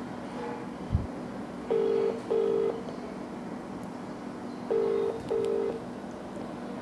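Telephone ringback tone through a small mobile phone's speaker: two double rings, each a pair of short burrs with the pairs about three seconds apart, the line ringing and not yet answered. A brief low thump about a second in.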